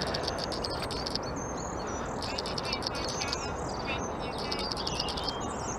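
Small birds chirping and twittering repeatedly over a steady low background noise.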